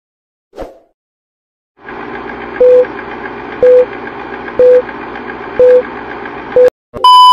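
Old-film countdown sound effect: a projector-like whirring with a short beep once a second, five times, then a longer, higher beep starting near the end. A brief soft hit comes about half a second in, before the whirring starts.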